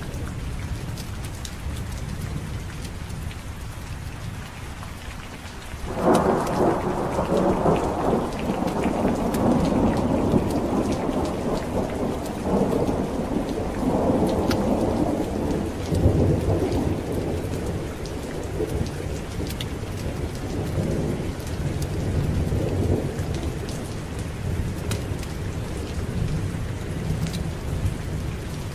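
Steady heavy rain with a thunder roll that breaks in suddenly about six seconds in. It rumbles on for some ten seconds, then slowly fades back into the rain.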